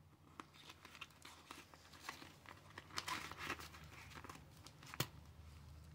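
Faint rustling and crinkling of paper cash being handled, with scattered small clicks and one sharper click about five seconds in.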